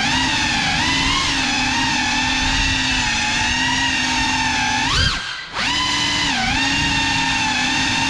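GEPRC CineLog35 cinewhoop quadcopter's motors and ducted propellers whining as it flies, picked up on board; the pitch rises and falls with throttle. About five seconds in it swells sharply, then cuts out for half a second as the throttle is chopped, and picks back up.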